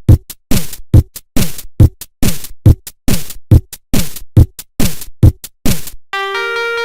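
Electronic drum-machine beat: a booming kick with a falling pitch about once a second, each kick followed by a lighter hit. About six seconds in the drums stop and a bright synth keyboard melody begins.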